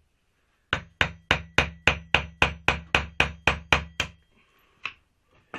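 Hammer blows on a washing machine's electric motor, trying to knock a part loose: about a dozen quick metallic strikes at about four a second with a faint ringing, then a pause and two more single strikes near the end.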